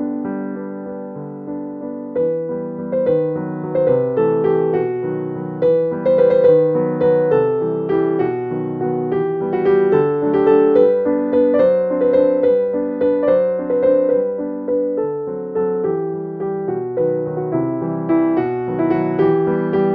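Background piano music with a steady beat of plucked-sounding notes.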